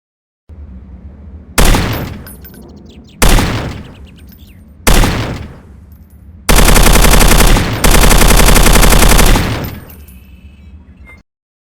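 Light machine gun firing: three single shots about a second and a half apart, then two long bursts of rapid automatic fire, the second fading out with a ringing tail.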